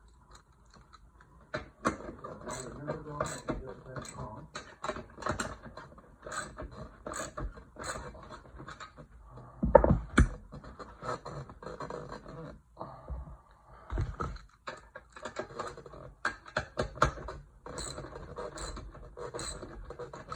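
Irregular clicks, clunks and rattles of metal tiller parts being handled and fitted by hand during assembly, with heavier thumps about ten and fourteen seconds in.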